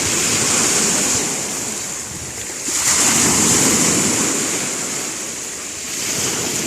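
Sea waves surging and washing in, swelling about three seconds in and again near the end, with wind on the microphone.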